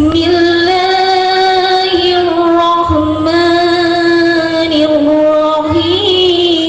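A woman reciting the Quran in the melodic tilawah style, holding long, drawn-out sung notes that shift in pitch every second or two.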